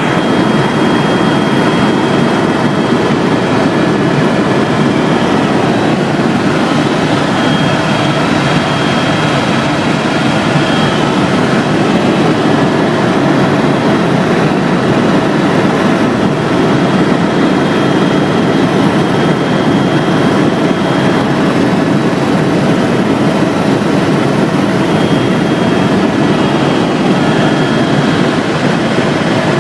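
Aircraft engine droning steadily in flight, a dense, even noise with a few faint steady whining tones over it.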